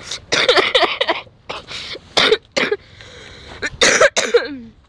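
A person coughing in a series of short, harsh bursts.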